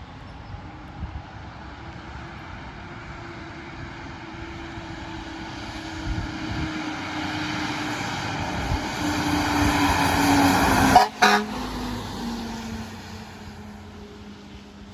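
Fire apparatus driving past: engine noise and a steady low tone build as it approaches, peak about eleven seconds in with a brief dropout, then fade as it pulls away, the tone dropping in pitch.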